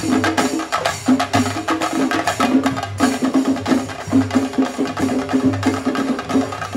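Shingari melam ensemble of chenda drums beaten with sticks in a fast, dense rhythm, with low pitched drum notes pulsing in time under the sharp stick strokes.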